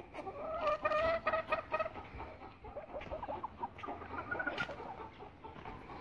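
Aseel chickens clucking: a drawn-out call in the first two seconds, then a scatter of short calls.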